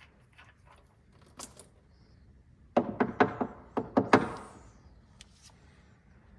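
Light ticking, then about a second of loud metallic clanks and knocks about three seconds in, as the tractor's sump drain plug is worked out over the oil drain pan.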